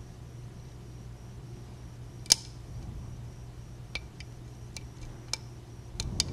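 Small metallic clicks from a lock pick and tension wire working the pins of a 5-pin Corbin pin-tumbler lock. There is one sharp, louder click about two seconds in, then a scattering of lighter ticks near the end, over a steady low hum.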